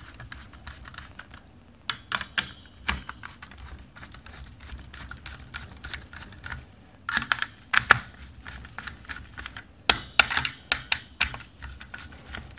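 Hand screwdriver driving an AMD Wraith cooler's mounting screws into the motherboard backplate: a run of small metallic clicks and ticks, in flurries about two seconds in, around seven to eight seconds, and again around ten to eleven seconds.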